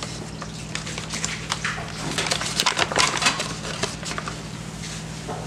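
Paper flour bag crinkling and rustling as it is handled and tipped to pour flour into a plastic measuring cup: a run of small crackles, busiest in the middle, over a steady low hum.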